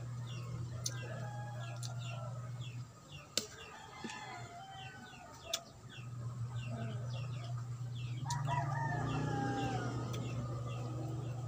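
A rooster crowing, the loudest call starting about eight seconds in and falling at the end, with clucking and repeated short high chirps around it over a steady low hum. Two sharp clicks come at about three and a half and five and a half seconds in.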